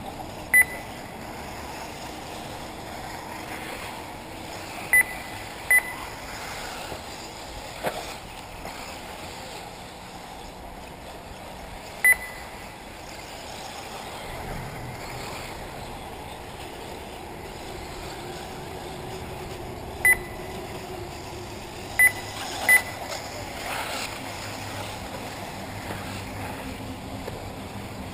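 Short single-pitch electronic beeps from an RC race lap-timing system, seven in all at irregular intervals, each marking a car crossing the timing line, over a steady outdoor hiss.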